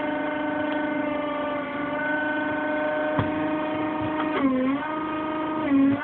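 Steady hum of a small work vehicle's motor, heard from inside its cab. The pitch dips briefly about four and a half seconds in and again near the end.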